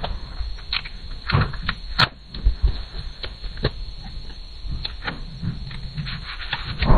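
Construction site noise: irregular knocks and clicks over a low rumble, with one sharp bang about two seconds in.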